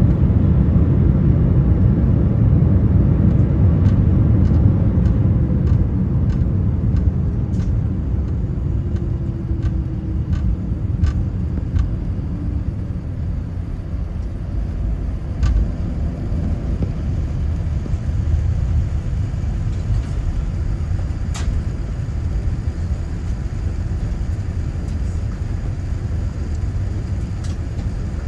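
Boeing 787-9 cabin on the ground just after landing: a heavy rumble of the airliner rolling on the runway, with an engine whine that falls in pitch over about ten seconds as the aircraft slows. The rumble fades through the first half, with a few light rattles and clicks from the cabin.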